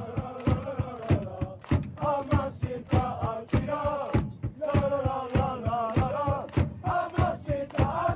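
Tokushima Vortis away supporters singing a player chant in unison, with sharp beats about twice a second keeping the rhythm.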